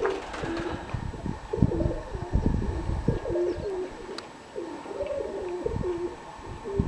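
Domestic pigeons cooing over and over, with gusts of wind rumbling on the microphone.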